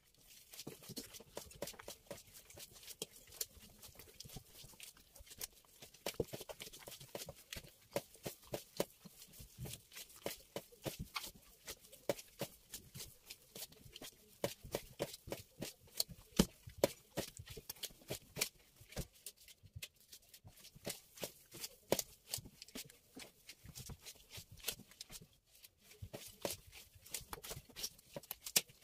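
Hands working soft, sticky semolina bread dough: a quick, irregular run of wet slaps and clicks, several a second, with brief lulls.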